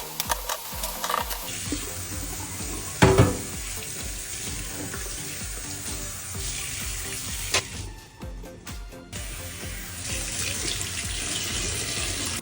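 Tap water running and splashing in a sink as refrigerator parts are washed, over background music with a steady beat. A sharp knock about three seconds in.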